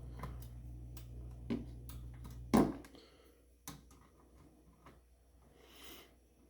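Small metallic clicks and knocks of screws and sheet-metal parts being handled inside a laser printer, five or so. The loudest knock comes about two and a half seconds in. A low steady hum stops abruptly at that same moment.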